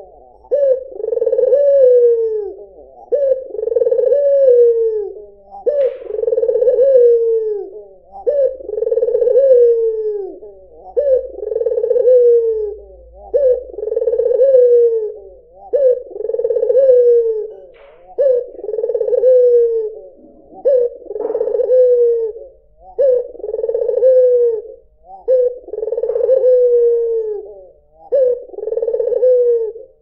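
White puter (Barbary dove) cooing over and over, one low coo about every two seconds, each sliding down in pitch at its end.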